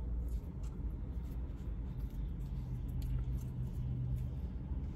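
Faint light clicks and rustles of two small plastic toy pistols being handled in the fingers, over a low steady rumble, with a faint low hum in the middle.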